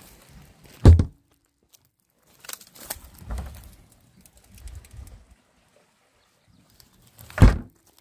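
Two dull thumps about six and a half seconds apart as the plastic lid of a chest freezer is handled and shut, with light rustling between them.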